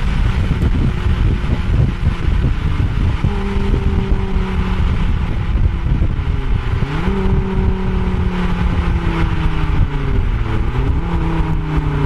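Exhaust of a heavily tuned Ford Focus RS Mk2 with a GTX35 turbo and a turbocharged 2.5-litre five-cylinder, heard close up from the rear diffuser while driving at a steady cruise, with road and wind rumble. The engine note drops and climbs back up about six and a half seconds in, and again near the end.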